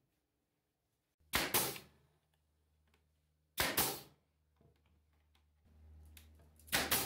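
Pneumatic brad nailer firing three times, a little over two seconds apart, driving brads into 3/4-inch MDF; each shot is a sharp double crack. A low hum starts shortly before the third shot.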